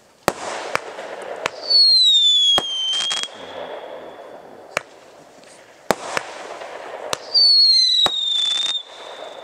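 Consumer firework cake (a multi-shot "magazine cake") firing: a string of sharp bangs as shots launch and burst. Twice a shrill whistle slides down in pitch and then holds for about a second and a half over a loud rushing hiss.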